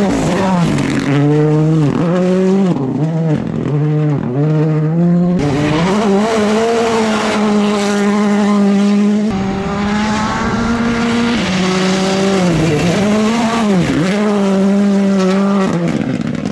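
Turbocharged four-cylinder Rally2 rally car engines (Hyundai i20 N, Ford Fiesta) at high revs on a gravel stage. The revs repeatedly drop and climb again with gear changes and lifts for the corners. Several cars pass one after another in quick succession.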